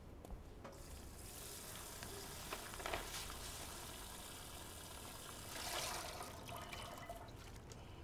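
Water running from a tap, starting about a second in, swelling briefly near the sixth second and stopping near the end.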